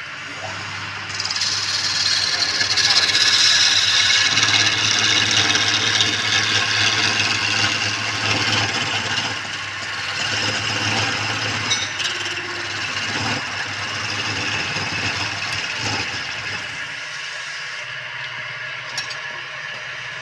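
Wood lathe motor running with a steady hum while a tool works the spinning wood, giving a loud, even rushing noise. The rushing starts about a second in, is loudest over the next few seconds, and stops near the end, leaving the motor hum.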